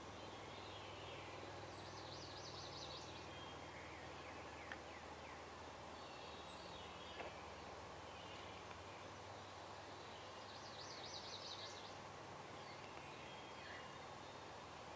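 Quiet dawn field ambience: a steady low hiss with scattered songbird chirps. Twice, a rapid rattling bird call about a second long rings out, once early and again about two-thirds of the way through.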